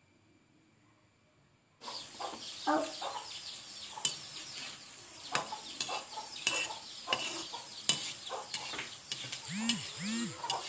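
Boondi (drops of gram-flour batter) frying in hot oil: a steady sizzle full of small crackles and pops, cutting in suddenly about two seconds in after near silence. A hen clucks twice near the end.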